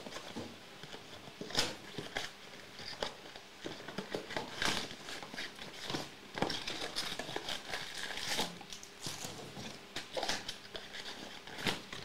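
Foil-wrapped Topps Chrome trading-card packs crinkling and rustling as they are handled and stacked, mixed with the scrape and rustle of the cardboard hobby box, in irregular crackles of varying loudness.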